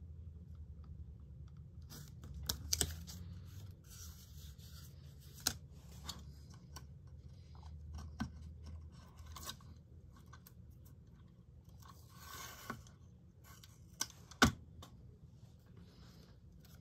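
Masking tape being handled and pressed down onto a paper sheet: scattered small clicks, crinkles and scratches, with a longer scratchy rustle about twelve seconds in and a sharp click a couple of seconds later. A faint low hum runs underneath.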